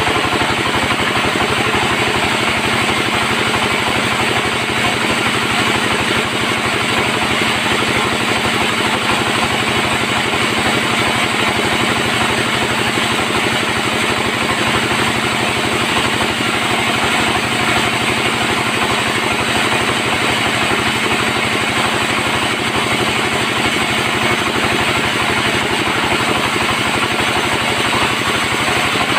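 Bandsaw sawmill running steadily, a loud unbroken mechanical drone with a fast even pulse.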